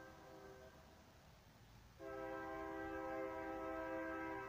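Train horn sounding a steady multi-note chord in two blasts: a short one that cuts off within the first second, then a louder, longer blast of nearly three seconds starting about two seconds in.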